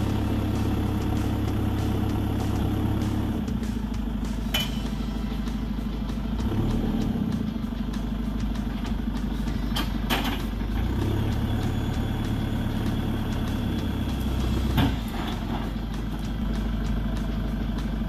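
JCB 3CX backhoe loader's four-cylinder diesel engine running steadily, its low note shifting several times, with a few sharp knocks.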